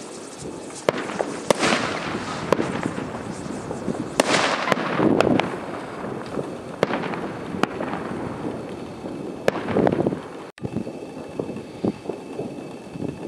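Fireworks going off: a string of sharp bangs about a second apart, with hissing and crackling between them, thinning out over the last few seconds.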